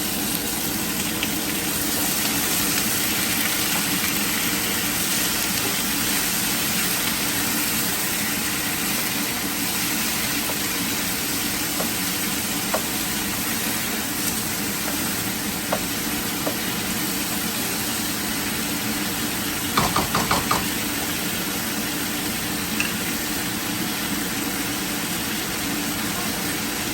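Food frying in a pan, a steady sizzle over a constant low hum. There are a few scattered clicks, and a quick run of about six knocks some twenty seconds in.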